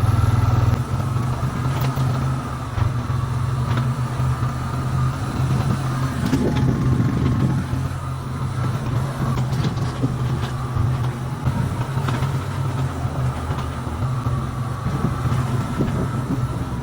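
Honda four-wheeler's engine running steadily as it drives along, towing a bale unroller, with a few faint clanks.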